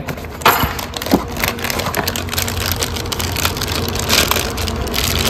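Plastic bag crinkling and rustling as hands lift a bagged CNG injector rail out of a cardboard box, with a sharp knock about half a second in.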